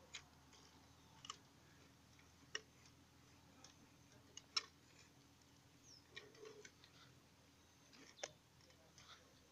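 Near silence broken by scattered sharp clicks and ticks, about eight of them at irregular intervals, the loudest about halfway through. They come from a hand-worked, cable-controlled model excavator as its arm and bucket dig into sand.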